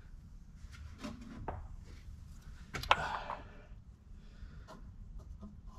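Faint clicks and knocks of small parts being handled, with one sharper click about three seconds in.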